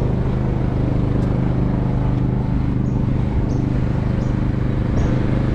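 City street traffic with the steady hum of a motor vehicle engine idling close by. From about halfway, faint high ticks repeat about every 0.7 s.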